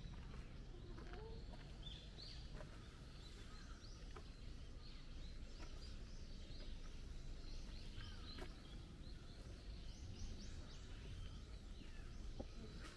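Small birds chirping and calling in short, rising and falling notes, many times, over a steady low background rumble, with a few faint clicks.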